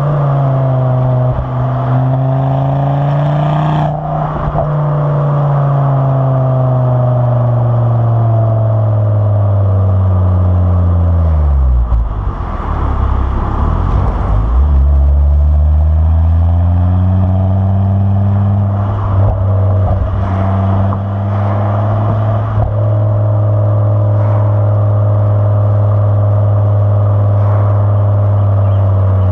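Motorcycle engine under way, heard from the bike with wind rushing over the microphone. Its pitch sinks gradually as the bike slows and drops lowest about twelve seconds in. It then climbs again and settles into a steady cruise for the last several seconds.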